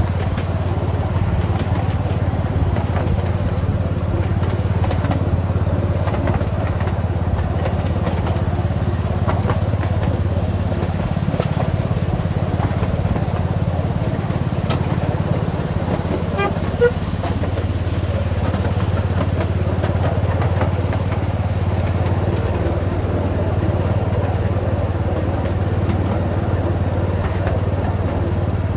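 Engine of a miniature-railway Hymek-outline locomotive running steadily as it hauls the train, a constant low drone. A short squeak comes about two-thirds of the way through.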